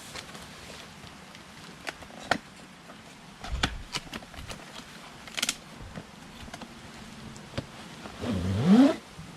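Handling noises from a tripod and its packaging: scattered clicks and knocks, then, near the end, a loud scrape under a second long that rises in pitch.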